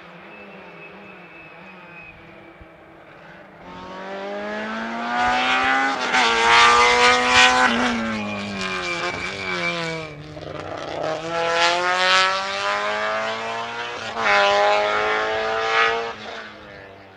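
Rally car engine coming in loud at full throttle, its pitch climbing several times with sharp drops between as it shifts up through the gears, then fading quickly near the end.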